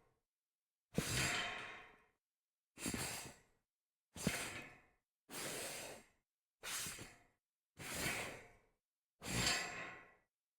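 Something sliding across a metal grate, seven separate slides, each about a second long, starting sharply and fading out, with short silences between.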